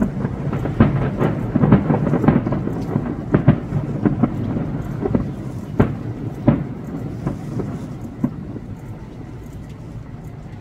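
Fireworks bursting at a distance: a quick run of sharp bangs over a rolling rumble, thinning to scattered bangs and fading away near the end.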